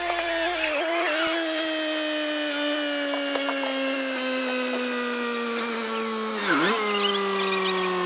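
John Deere skid steer running under load, its engine and hydraulics making a steady whine that slowly falls in pitch as the machine lugs. The pitch dips sharply and briefly about six and a half seconds in.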